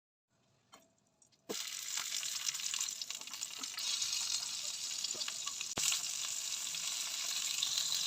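Food frying in hot oil in a pan: a dense, steady sizzle that starts abruptly about a second and a half in, with a couple of sharp clicks.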